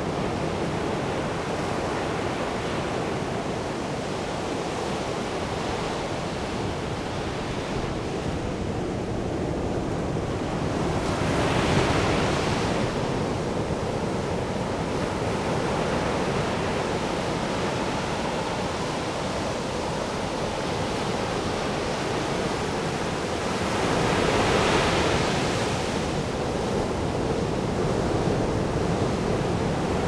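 Ocean surf breaking and washing up a sandy beach: a steady rush of water, with two bigger waves swelling louder, one a little before the middle and one near the end.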